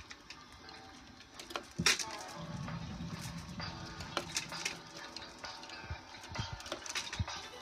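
Wooden beads on hanging strands clacking against each other in a light, irregular scatter of clicks.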